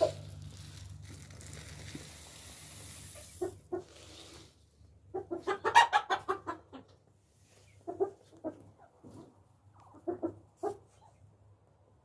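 Japanese bantam chickens clucking in short runs of quick clucks, the loudest and densest run about six seconds in. A low steady hum underlies the first four seconds.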